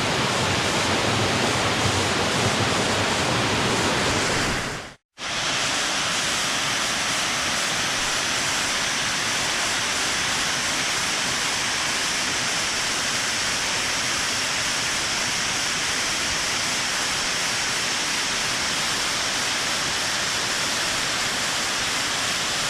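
Waterfall rushing: a steady, loud wash of falling water. It cuts out for an instant about five seconds in, then carries on a little brighter.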